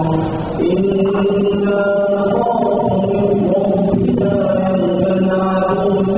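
A man chanting the Quran in melodic tajweed style, holding long, drawn-out notes. He pauses briefly for breath about half a second in, then starts a new phrase.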